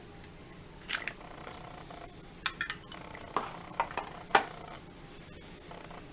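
Brass Zippo lighter being handled: a string of about nine sharp metallic clicks and clinks over a few seconds, the last the loudest.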